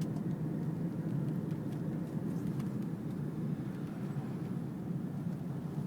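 Steady road and tyre noise inside a moving car's cabin, an even low rumble with no brake squeal heard.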